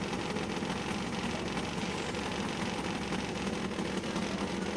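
Drag-racing motorcycle engine idling steadily, a constant low hum with no revving.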